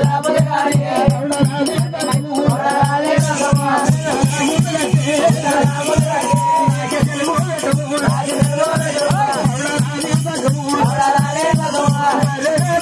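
Oggu Katha folk music: singing voices over a steady hand-drum beat of about four strokes a second, with a jingling rattle along with it.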